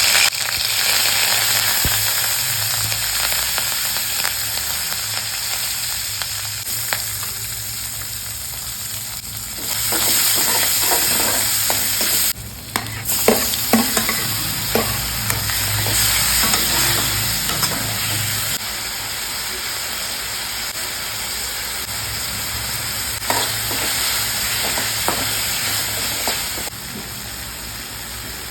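Food sizzling in hot oil in a pan, a steady hiss, while a spoon stirs it. The spoon clicks against the pan a few times around the middle and again near the end.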